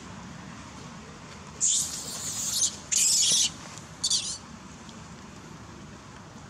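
Juvenile long-tailed macaque screaming: three shrill, high-pitched screams in quick succession starting about one and a half seconds in, the last one short.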